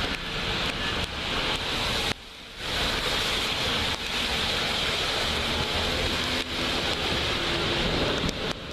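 Steady rushing, rumbling noise of an Amtrak train running past, wheels on rail and the rush of air, with a short dropout about two seconds in.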